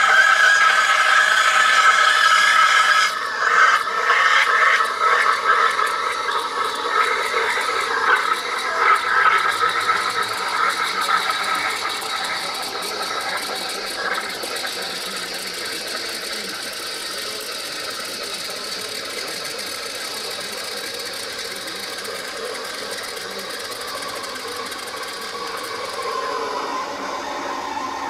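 Steam wand of a De'Longhi Stilosa EC260BK espresso machine frothing milk in a cup. It gives a loud, shrill whistle with several steady pitches for about the first eleven seconds, then settles into a quieter, steady hiss.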